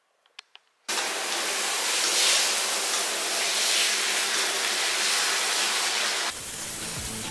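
Handheld shower head spraying water through hair into a bathtub as the hair is rinsed, a dense steady rush that starts abruptly about a second in after a few faint clicks. Near the end the water drops quieter and background music comes in.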